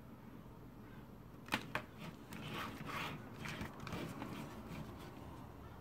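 Two sharp clicks about a second and a half in, then a few seconds of irregular scraping and light knocking: the radio's LCD circuit board in its plastic frame being moved and turned around on a desk.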